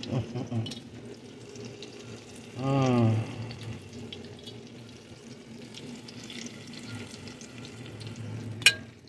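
Hot oil sizzling steadily in a cast-iron skillet as battered green tomato slices fry, with small clicks and scrapes. About three seconds in a short wordless voice falls in pitch, and near the end comes a single sharp clink, the loudest sound.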